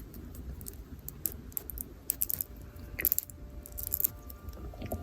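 Small plastic toy pieces clicking and tapping as they are handled and pushed together, in scattered clusters of sharp clicks over low handling rumble.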